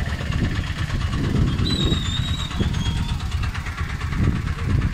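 Steady low roar of swollen floodwater rushing through an opened dam.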